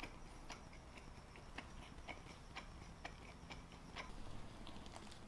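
Faint, wet mouth clicks of someone chewing a bite of cheesesteak close to the microphone, about two a second.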